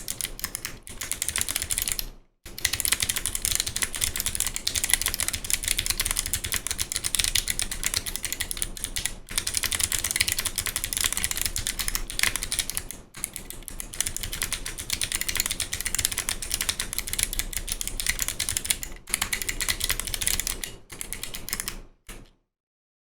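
Fast typing on a mechanical keyboard with Kailh Box Navy switches: heavy, clicky keystrokes in a dense run with a few brief pauses, stopping shortly before the end.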